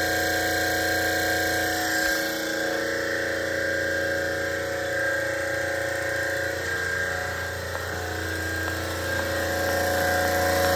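Copeland 9RS refrigeration compressor running steadily: a constant machine hum with several steady tones over it, including a high whine.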